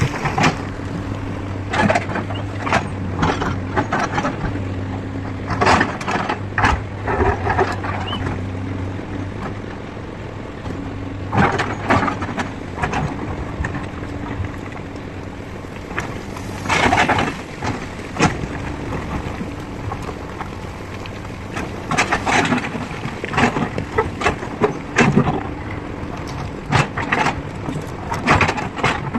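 Excavator's diesel engine running steadily, with frequent short, sharp knocks and clanks over it.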